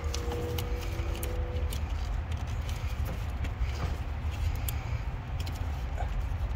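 Scattered light clicks and rattles of plastic fuel-line fittings and rubber hoses being handled and pushed together by gloved hands, over a steady low rumble.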